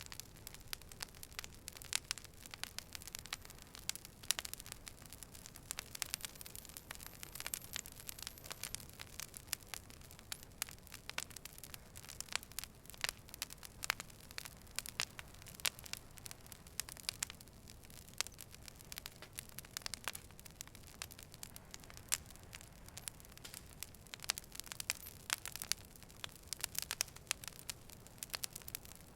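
Wood fire burning: a low steady hiss with frequent sharp, irregular crackles and pops.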